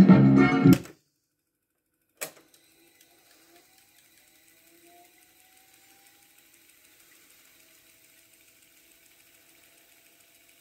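Organ music playing back from a Philips N4504 reel-to-reel tape deck stops abruptly under a second in. About a second later a transport key clicks sharply. The deck then winds its tape at speed with a faint whir and light ticking, and a faint tone rises slightly in pitch as the reels speed up.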